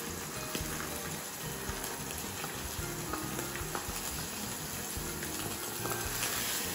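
Sliced pork sizzling steadily in a hot frying pan, over background music.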